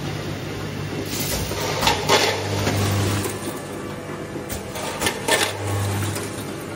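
Vibratory bowl feeders of a furniture-screw counting and packing machine running: a steady low mains hum that swells twice, under a continuous rattle of small parts shaking along the bowl tracks. Irregular sharp clatters come through as parts drop through the chutes.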